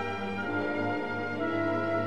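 Background orchestral music with sustained brass and string notes.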